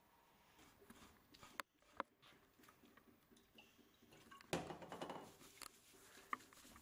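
Faint wet handling of a boiled pork belly's rind by hand as it is cleaned: a few light clicks, then a short scrubbing rasp about four and a half seconds in, and more small clicks near the end.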